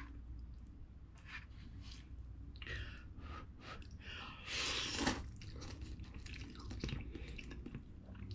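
Instant cup ramen being eaten with chopsticks: short stirring and chewing sounds, then a loud slurp of noodles from the chopsticks about halfway through.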